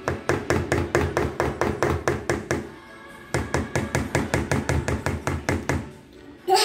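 Metal spoon tapped rapidly against the rim of a plastic mixing bowl, about six or seven knocks a second in two runs with a short break, knocking margarine off the spoon into the flour. A brief loud burst of a child's voice comes at the very end.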